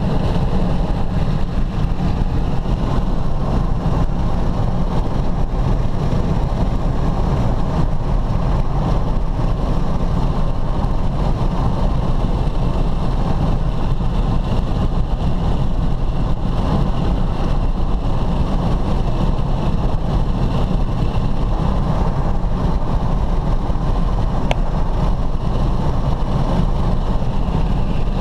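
Steady low engine rumble that holds level and pitch without change.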